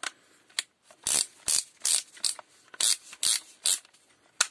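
Plastic mechanism of a Black & Decker 14.4 V cordless drill being turned by hand, with the motor not running: a run of short ratcheting clicks. The loudest seven come about every half second from about a second in.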